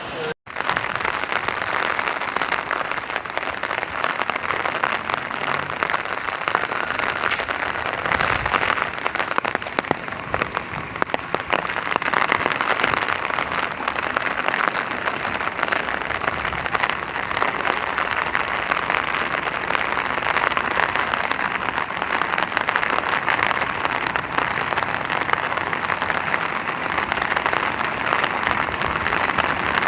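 Rain falling steadily, an even dense hiss of drops, with a momentary dropout just after the start.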